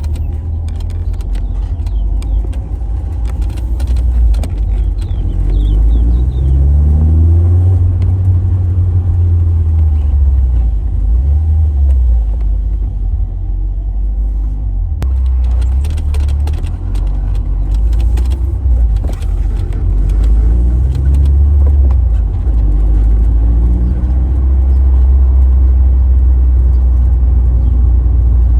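Car being driven, its engine rising in pitch as it accelerates several times over a heavy, steady low rumble.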